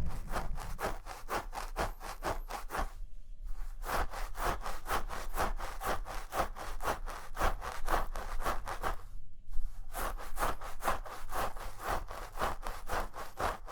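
Fast rhythmic scratching or rubbing strokes on an object held close to the microphone, about five a second, in three runs broken by two short pauses.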